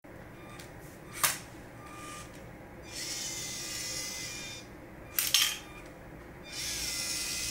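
Small electric motors of a LEGO Technic lifting robot whirring through their plastic gears in two spells of about one and a half seconds each, with a faint steady whine. Two sharp plastic clacks, one about a second in and one about five seconds in, are the loudest sounds.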